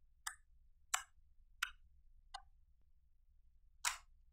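Fingers poking and pressing a lump of clear slime, each press giving a short, sharp click or pop: four evenly spaced about 0.7 s apart, then one more after a pause near the end.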